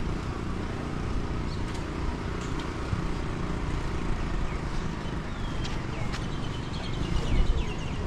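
Outdoor ambience: a steady low rumble with birds calling over it, a few short chirps and then a run of quick falling whistles near the end.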